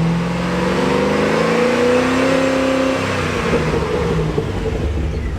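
Holden VE Commodore SS 6.0-litre V8 revving up, its pitch climbing for the first two to three seconds, then easing back down. It runs smoothly with no misfire now that the broken pushrod has been replaced.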